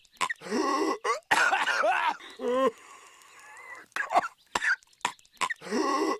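Patrick Star, the SpongeBob SquarePants cartoon starfish, coughing in a looped clip: a few short sharp coughs, then long raspy hacking fits that end in a brief wavering croak. The same sequence starts over about four seconds in.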